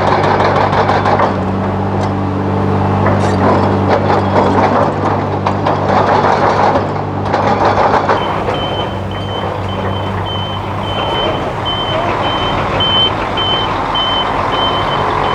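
Heavy diesel construction machine running steadily under load, with irregular clattering and scraping in the first half. About halfway through, a backup alarm starts beeping steadily, roughly two beeps a second.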